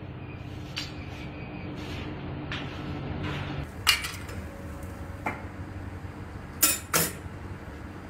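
Kitchen clatter of a knife, frying pan and utensils: a scattering of sharp knocks and clinks, the loudest about four seconds in and two close together near seven seconds, over a steady low hum.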